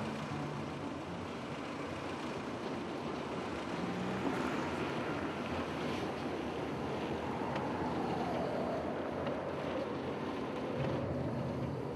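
Steady wind rushing over the microphone, with a faint tone sliding down in pitch from about seven seconds in.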